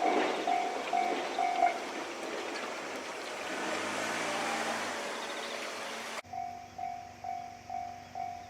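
Japanese level crossing's electronic warning bell ringing at about three pulses a second while a 103 series electric train runs over the crossing, wheel and motor noise loud and covering the bell for several seconds. About six seconds in the sound cuts abruptly to the crossing bell alone, quieter and clearer.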